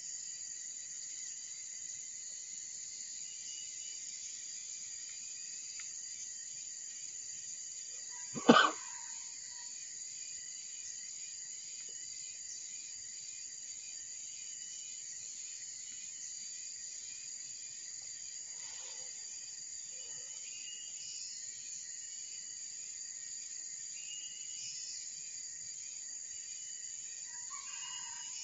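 Steady high-pitched chorus of insects from the riverside forest. One short, loud, sudden sound cuts through it about eight and a half seconds in.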